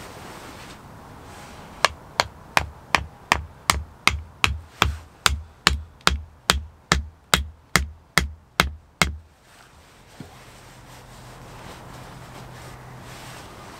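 A wooden stake being driven into the ground with blows from an axe head on its top: about twenty steady, evenly spaced knocks, between two and three a second, that stop about three-quarters of the way through.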